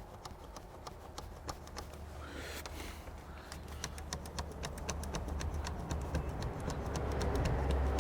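Hand fuel-priming pump on a 2006 Toyota Hilux 2.5 litre D4D diesel being worked by hand, making rapid regular clicking with a low hum growing louder toward the end. The pump is being worked to build fuel pressure, which is not there yet because the fuel supply is blocked by dirt from the tank.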